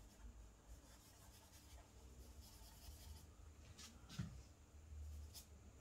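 Faint scratching of charcoal stroked across drawing paper, with a soft bump about four seconds in.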